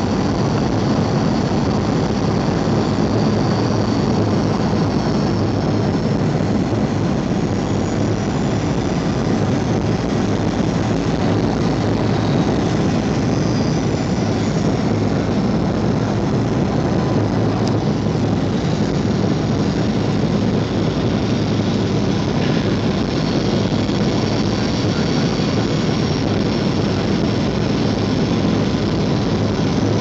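Steady cabin noise of a Boeing 737 airliner on its landing approach: jet engines and rushing airflow heard from inside the cabin, with a faint steady whine above the low rumble.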